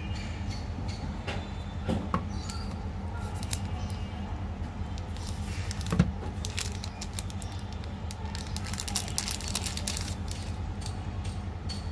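Hands handling chocolate-coated wafer bars and crinkly plastic candy wrappers: scattered light clicks and rustles, thicker around nine to ten seconds, with one louder knock about six seconds in, over a steady low hum.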